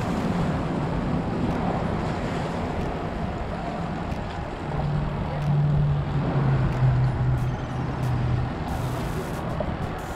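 Wind buffeting the microphone with waves washing against rocks. A low steady hum comes in about halfway through and fades near the end.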